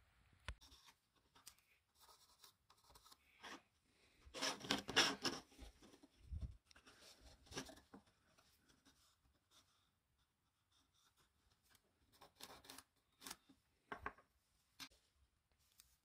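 Faint handling of cut plywood parts on a worktop: scraping and sliding, loudest about five seconds in, a soft knock a little later, and light scratching of a pencil marking the wood.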